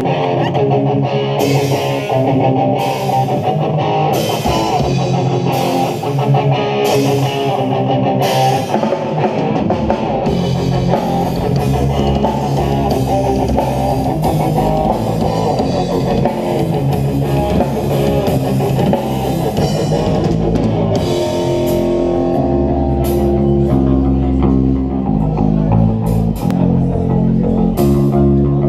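Live hardcore punk band playing an instrumental intro: distorted electric guitar with sharp accented hits about every second and a half, then bass guitar and full drum kit come in about ten seconds in and the band plays on together.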